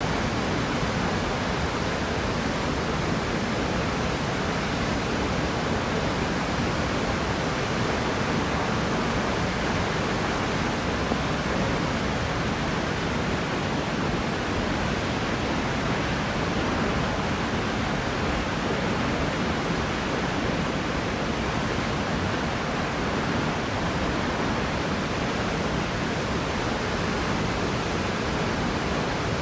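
Multnomah Falls in heavy flow after days of rain: a steady, loud rush of falling water.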